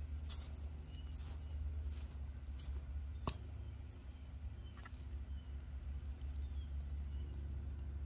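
A hand scraping and patting loose potting soil in a pot, with soft crumbly rustling and a few sharp clicks, the sharpest about three seconds in. A bird chirps faintly and repeatedly in the background.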